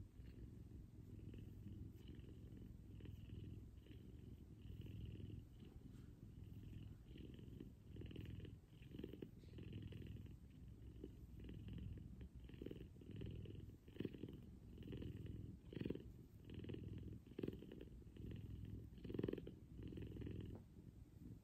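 F2 Savannah cat purring while being scratched under the chin, a low steady hum that swells and fades with each breath about once a second, with a few stronger pulses in the second half.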